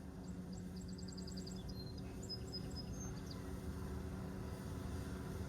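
A bird singing: a quick trill of about eight short high chirps, then a few high whistled notes, over a faint steady low hum.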